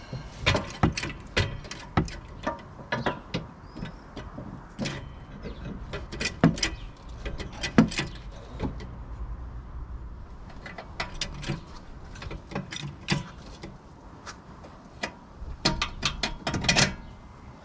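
Irregular metallic clicks, clinks and knocks of hand tools and parts being worked on a car's rear suspension, several a second at times, over a low steady background.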